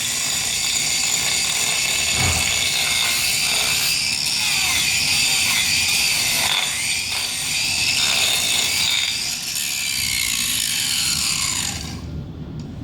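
Angle grinder grinding down a horse's hoof, a loud high whine whose pitch wavers as it bites into the hoof. It winds down and stops near the end.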